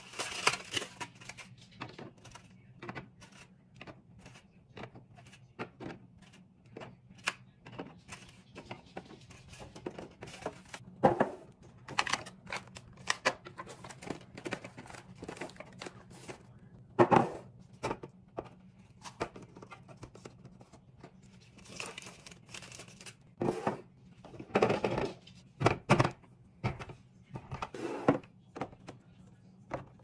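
Food packed into clear plastic fridge organizer bins: eggs clicking into a plastic egg holder, then wrapped snack packs crinkling and tapping into a bin. The sharp clicks and taps come throughout, with several louder knocks of items set down, and plastic bottles knock into an organizer near the end.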